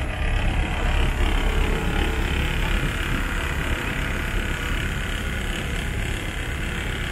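Steady drone of a passenger boat's engine under a constant rushing noise of water and air, heard on board while under way.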